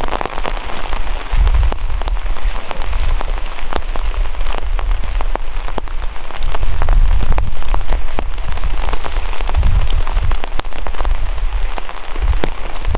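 Steady rain pattering, with many sharp drop ticks, over a low rumble of wind on the microphone that grows stronger about six seconds in.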